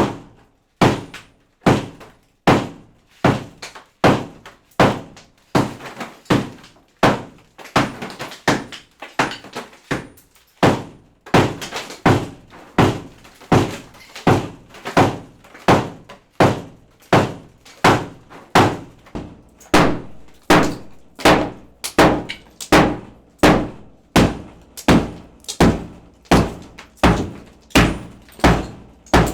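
Heavy hammer blows breaking up a brick wall, struck in a steady rhythm a little over once a second, each a sharp knock with a short crumbling tail.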